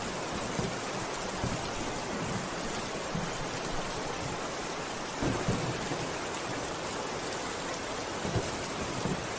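Steady rain hissing, with brief soft low thumps now and then, the strongest about five seconds in.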